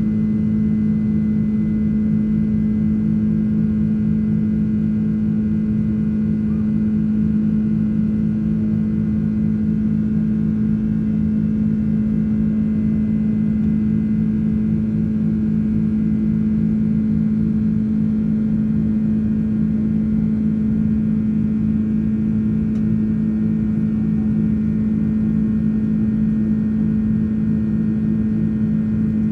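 Steady drone of a Boeing 767-300ER's jet engines heard inside the cabin during the climb, a constant low hum with a strong steady tone and a rumble beneath it.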